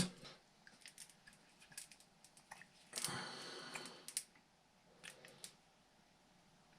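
Faint clicks from handling small plastic and metal RC shock parts and a shock oil bottle, with a brief scraping hiss about three seconds in and a few more clicks after it.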